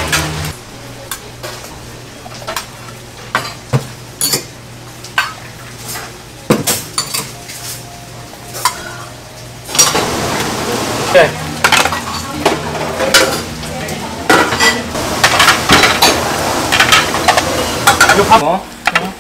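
Metal bowls and small soup pots clinking and knocking as they are handled and set on a metal serving tray. A steady hiss runs underneath. About halfway through the hiss grows louder and the clatter comes much faster.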